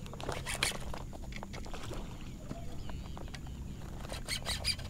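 Fishing reel being cranked to retrieve a lure, in short spells of quick ticking and whirring.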